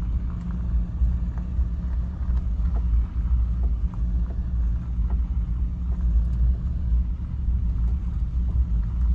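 Mahindra Bolero's diesel engine at idle, about 1,000 rpm in first gear, pulling the SUV slowly up a steep climb with no throttle, heard as a steady low rumble. Light rattles come through from the rough road now and then.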